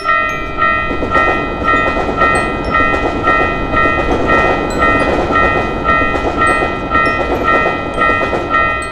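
Japanese railroad crossing bell ringing steadily, about twice a second, while a diesel train passes and its rumble fills the sound.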